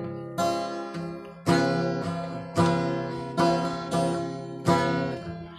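Acoustic guitar strummed in slow chords, about one a second, each chord ringing out and fading before the next.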